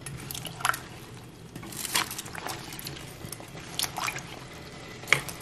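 Water sloshing as a metal spoon stirs chunks of apple in a pot of water, with a handful of short, sharp, irregular pops from water spilled on the hot stovetop.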